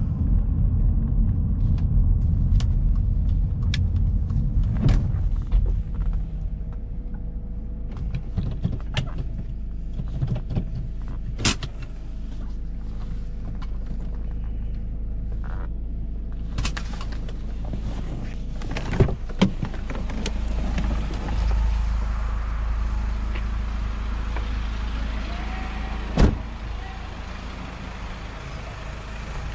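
Alfa Romeo 159 running with a steady low engine and road rumble, broken by scattered sharp clicks and knocks. A little over halfway through, a steady hiss rises and stays.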